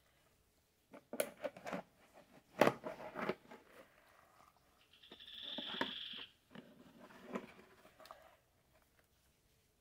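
A few knocks and clatters of containers being handled. About five seconds in comes a high-pitched tone lasting about a second and a half.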